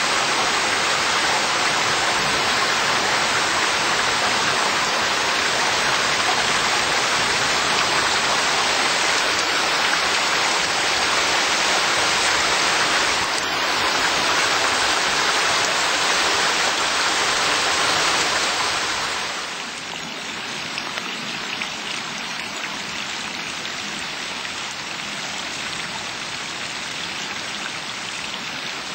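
Heavy rain falling in a steady, dense hiss. About two-thirds of the way through it drops to a softer, steady rush of water.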